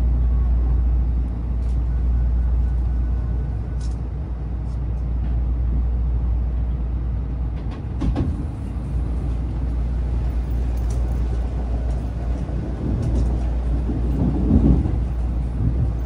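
Running noise inside a Tokaido Shinkansen passenger car: a steady low rumble from the moving train, with a sharp knock about eight seconds in and a brief swell near the end.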